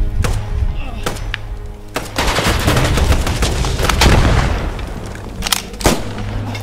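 Battle gunfire: a few sharp single shots in the first two seconds, then a dense, louder stretch of heavy fire from about two to five seconds in, and two more sharp shots near the end. A low, steady music drone lies underneath.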